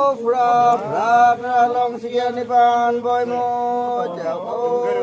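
A male voice chanting a prayer in long held notes, each note sliding up at its start and holding steady before breaking off.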